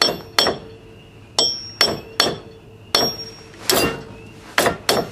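Metal tapping on the steel front wheel hub and stud: about nine sharp, ringing clinks at uneven intervals.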